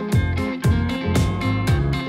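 Background music with a steady drum beat, about two beats a second.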